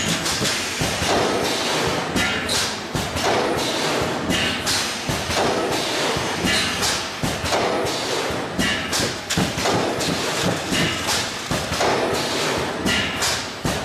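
Gabler Varius thermoforming line running: its conveyor and stacking unit handle stacks of plastic lids with a steady mechanical clatter and frequent irregular thumps.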